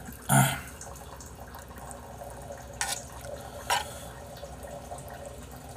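Close-miked eating sounds from a metal spoon and a bowl of soupy jjamppong-bap: three short sounds, one just after the start and two more about three and four seconds in.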